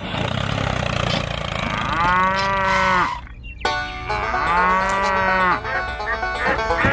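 A cow mooing twice, each moo about a second long, over a steady low hum.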